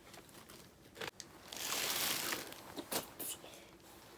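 Paper crinkling and rustling as a letter is handled and unfolded. There is one louder rustle for about a second in the middle, with a few sharp crackles around it.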